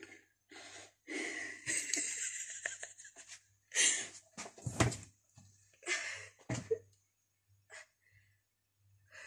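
A woman's breathy giggling and breathing in short bursts, mixed with handling noise as she rummages among bottles and jars, with one sharp knock about five seconds in.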